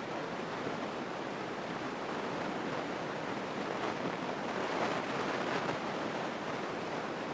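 Steady rushing cabin noise of a Grumman single-engine light airplane in flight: an even hiss of engine and airflow with no distinct engine tone.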